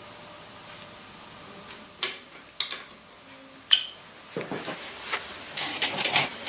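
Metal objects clinking and knocking as they are handled: a few sharp single clinks with a short ring about two seconds in, then a busier run of clinks and rattles near the end.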